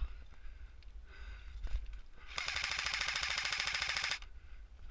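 Airsoft rifle firing one rapid burst on full auto, a fast even run of shots about two seconds in that lasts nearly two seconds and stops abruptly.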